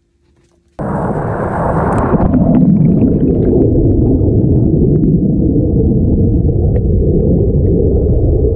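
Turbulent water churning in the hydraulic below a low head dam, heard underwater. It starts suddenly about a second in, hissing at first, then settles into a steady, muffled rumble of bubble-filled water with scattered small pops.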